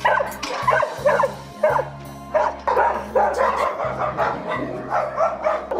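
A crowd of dogs barking in many short, overlapping barks. Background music with low held notes runs underneath.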